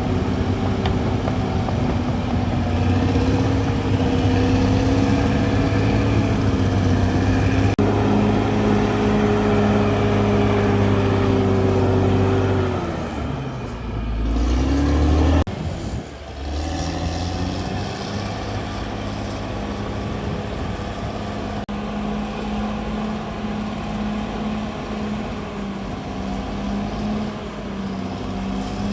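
CAT D6R XL bulldozer's diesel engine running steadily under load. About halfway through its note sags, then picks up again before changing abruptly.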